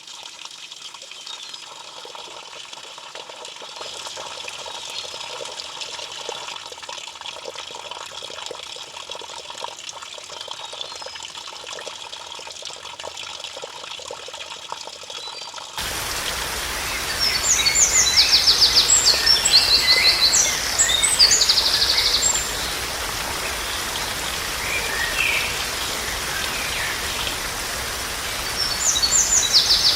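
Water trickling and pouring softly, then a sudden change to a louder steady outdoor hiss with birds chirping in quick high-pitched clusters, twice.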